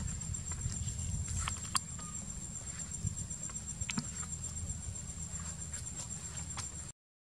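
Outdoor ambience: insects droning in a steady high whine over a low rumble, with a few faint clicks. The sound drops out completely for a moment near the end.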